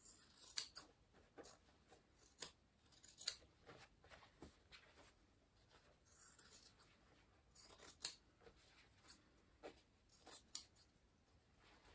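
Scissors snipping through the folded layers of a denim jeans hem: irregular cuts, the sharpest about half a second in, at about three seconds and at about eight seconds.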